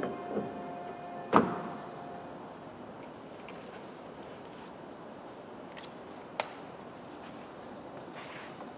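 One sharp clunk about a second and a half in, as the front door's exterior handle is worked and the latch releases. A faint steady tone stops with it, and after it there is only low room noise with a few faint clicks.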